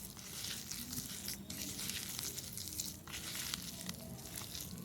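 Spiced mashed potato mixture being stirred and pressed in a bowl: soft, irregular squishing and rustling.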